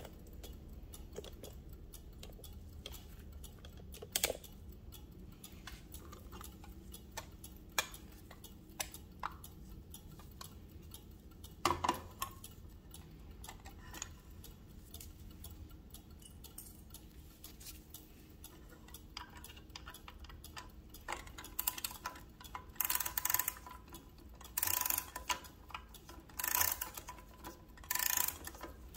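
Brass carriage clock handled with gloved hands, with scattered small clicks and knocks from its case and glass door. In the last third come short, irregular bursts of rapid ratchet clicking, about seven of them, each half a second long with a light metallic ring: a key winding the clock's spring.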